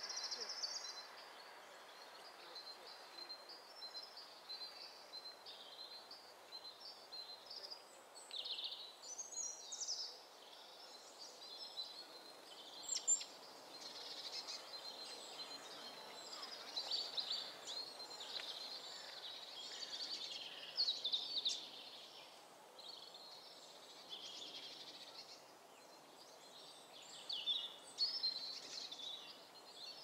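Small woodland songbirds singing and calling, a continual run of short high chirps and phrases, with one brief sharp click near the middle.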